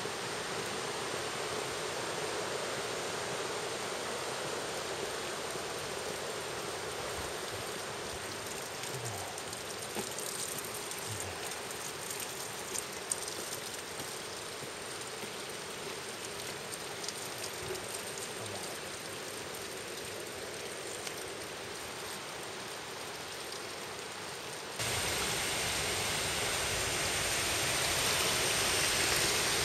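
Steady rush of running water, with a few faint taps in the middle; it turns suddenly louder about three-quarters of the way through and keeps building toward the end.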